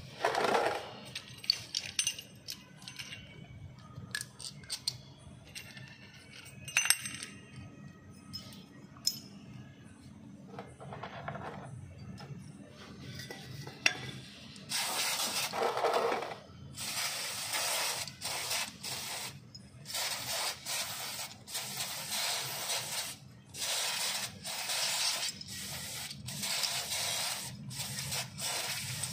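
Small metal brake parts clinking and clicking together in the hand. From about halfway on comes a string of short hissing blasts from an aerosol spray can fired through its straw onto a threaded drum-brake part.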